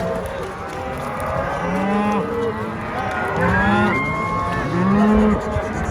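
Herd of beef cattle mooing on a drive, several cows calling one after another and over each other in long, arching moos.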